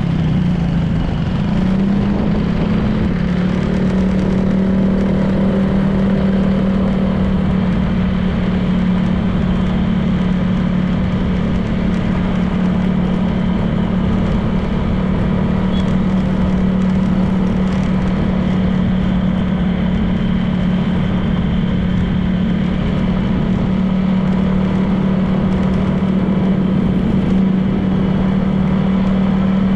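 Honda PCX 160 scooter's single-cylinder engine running at a steady cruising speed, its pitch dipping slightly about a second in and then holding level, over steady road and wind noise.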